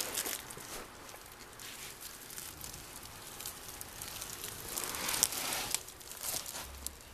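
Rustling and crinkling of a plastic glove and blankets as a gloved hand handles the cat in its bedding, with scattered small clicks and a louder burst of rustling about five seconds in.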